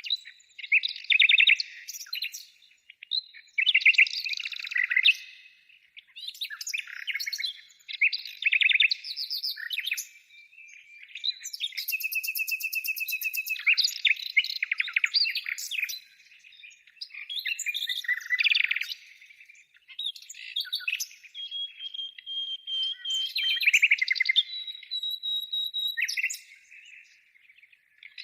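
Songbird singing in repeated phrases of fast chirps and trills separated by short pauses, with a few held whistled notes late on.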